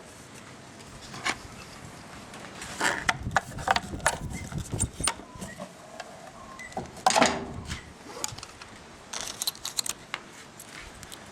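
Plastic housing of a Makita DMR110 radio being handled and fitted together: scattered clicks and knocks, the loudest about seven seconds in and a quick run of small clicks near the end.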